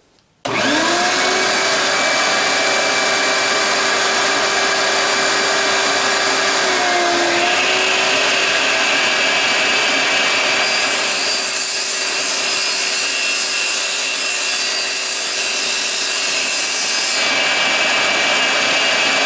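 Table saw running at speed and cutting a pine board: a steady motor and blade whine that dips briefly in pitch about seven seconds in, with a harsher hiss of the blade cutting through the wood from about ten to seventeen seconds in before it runs free again.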